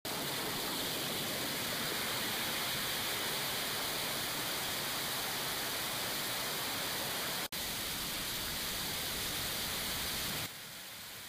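Waterfall rushing steadily, a dense even hiss of falling water. It drops out for an instant about seven and a half seconds in, and is quieter after about ten and a half seconds.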